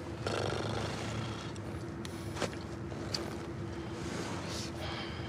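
Steady road and engine noise inside the cabin of a moving car, with a faint steady hum and a couple of small clicks in the middle.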